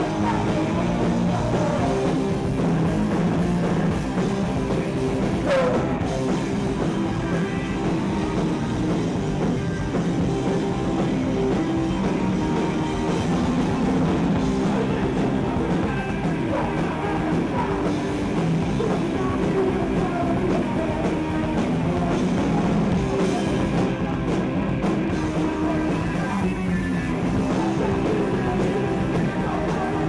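Punk rock band playing live and loud: distorted electric guitar and drum kit, with shouted vocals from the singer.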